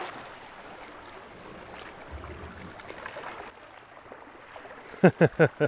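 Seawater lapping and trickling against the rocks at the waterline, a steady wash. Near the end a quick run of about five short, loud, falling voice-like notes cuts in.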